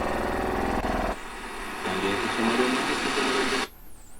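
Shortwave receiver audio while the radio scans across the band: a buzzing signal that changes abruptly about a second in, then a station with warbling tones, cut off suddenly a little before the end to faint hiss.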